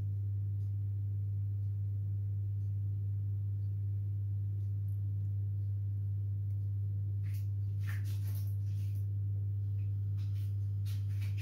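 A steady low hum throughout, even in level. In the second half come a few faint soft clicks and rustles as thin raw potato slices are dropped into a bowl of pakora batter.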